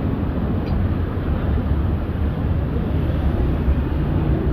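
A steady, low mechanical rumble that runs on evenly without pauses or distinct strokes.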